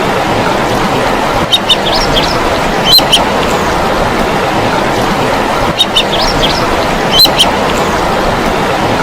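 Ibisbill calling: short, high piping notes in small clusters every second or two over a steady rushing background noise.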